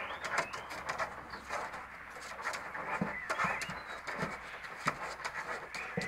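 Springer spaniel puppies giving short high squeaks and whines as they play-fight, with scattered clicks and scrabbling of paws.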